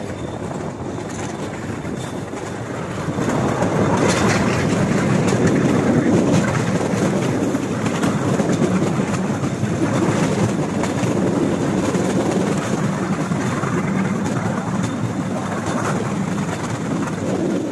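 Cambodian bamboo train (norry) travelling along its rail track: a steady running noise with the clacking of its wheels on the rails. It grows louder about three seconds in and then holds steady.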